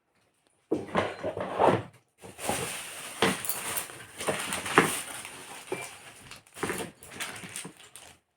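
Packaging being handled: rustling with sharp clicks and knocks, in irregular bursts that start about a second in.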